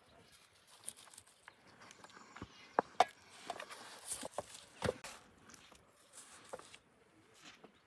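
A few scattered sharp knocks and clicks, the loudest about three and five seconds in, over faint rustling.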